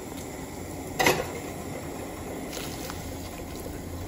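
A pot of water at a rolling boil with perilla leaves in it, bubbling steadily. There is one short sharp knock about a second in.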